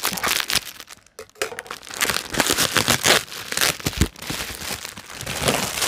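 Plastic bubble wrap crinkling and rustling as hands unwrap a parcel, with a dull thump about four seconds in.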